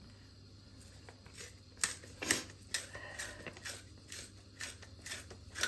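Hand pepper mill being twisted over a mixing bowl, grinding black peppercorns: a run of short grinding clicks, about two a second, starting a little over a second in.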